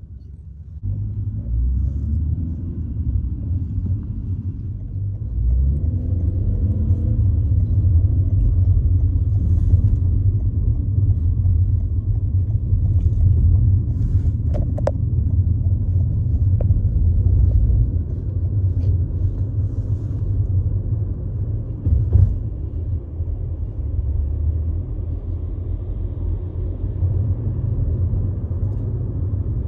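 A car driving, heard from inside: a steady, loud low rumble of road and engine noise, with the engine's pitch climbing as it pulls away in the first several seconds. A sharp click comes about 15 seconds in, and a thump about 22 seconds in.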